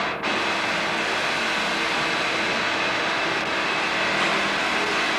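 Steady rushing noise with a few faint steady hums running under it, briefly dipping just after the start.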